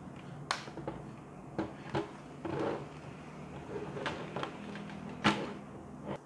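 T5 LED tube fixtures being handled and joined on a tabletop: a string of sharp clicks and knocks as the end connector and linking cable are fitted and the tubes are laid down, with a brief rustle in between. The loudest click comes near the end.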